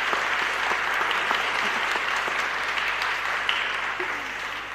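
Studio audience applauding, a dense clatter of many hands that begins to die away near the end.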